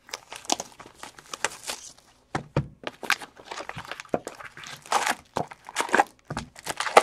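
Plastic wrapping crinkling and tearing in irregular rustles, with a couple of soft knocks, as a sealed box of trading cards is unwrapped and opened.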